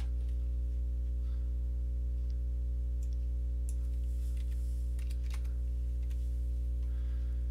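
Steady low electrical hum on the recording, with a few faint, scattered keyboard and mouse clicks as an extrusion distance is typed into the CAD program.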